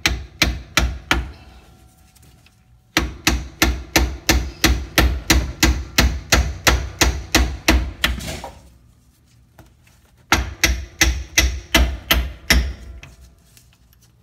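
Hammer blows tapping on the rear axle's pinion yoke to knock it off the pinion splines after the nut is removed. The sharp strikes come about three a second, in three runs broken by short pauses.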